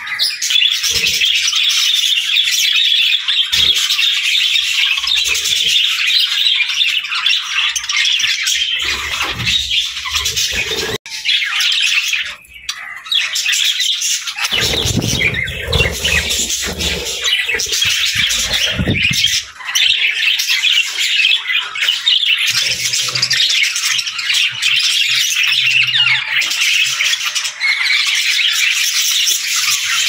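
A flock of budgerigars chattering, with dense, continuous warbling and chirping and harsh squawks. It breaks off for an instant about eleven seconds in, and a low rumble runs under it for a few seconds midway.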